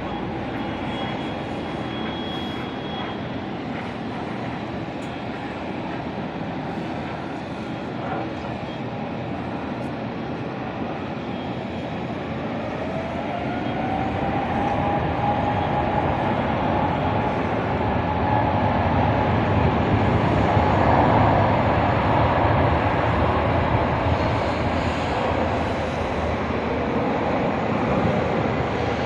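Aeroplane engines running steadily, then spooling up with a rising whine about twelve seconds in and growing louder as takeoff power is applied.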